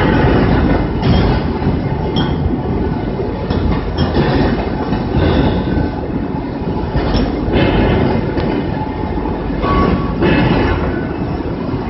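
Automated fettling grinder grinding a metal casting: a steady heavy rumble, with harsher grinding surges about every three seconds.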